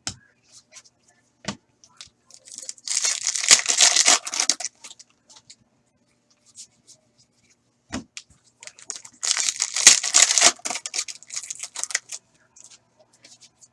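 Foil trading-card pack wrappers being torn open and crinkled, in two bursts: one about three seconds in and one about nine seconds in. A few light clicks come between.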